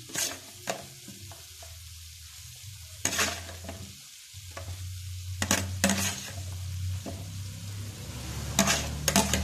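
Cauliflower florets dropped into a metal wok of cooking vegetables, then a spatula scraping and stirring through the pan near the end, over a steady low hum. Each drop and stir comes as a short clatter: about 3 seconds in, twice around 6 seconds, and several near the end.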